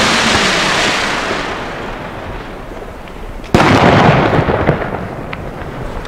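Hissing of a 75 mm Italian cylinder shell's burning stars fading away after its burst, then one sudden loud firework bang about three and a half seconds in, with a rumbling tail and a few faint cracks after it.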